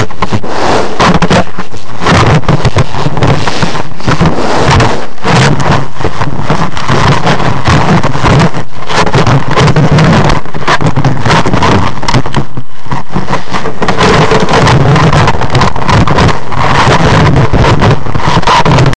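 Heavy scraping, rubbing and knocking right on a trail camera's body and microphone as an animal noses and handles it. The sound is loud and distorted, with a few short breaks.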